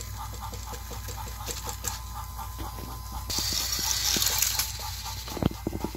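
Motorized toy train engines stalled head-to-head on plastic track, their motors humming with rapid clicking, about five ticks a second, as they push against each other. A burst of hiss about three seconds in and a sharp knock near the end.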